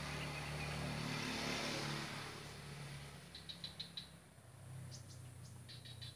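A motor vehicle passing by, its engine hum and road noise loudest in the first two seconds and then fading away. Twice later, a short run of rapid high chirps or clicks, about five in quick succession.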